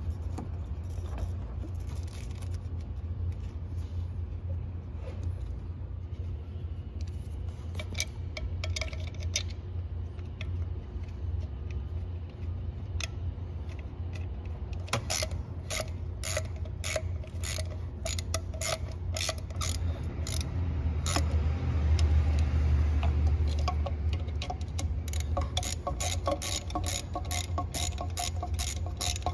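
Hand ratchet clicking in quick runs as thermostat housing bolts are turned, mostly in the second half. A steady low rumble sits underneath.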